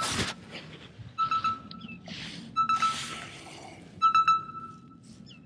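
A fishing rod swished through a cast, then a Daiwa Luvias LT spinning reel cranked in short spurts about every second and a half, each a whirring whine with a few clicks.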